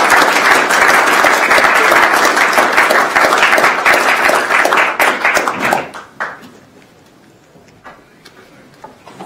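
Audience applauding, many hands clapping at once. The applause dies away about six seconds in, leaving a quiet room with a few faint ticks.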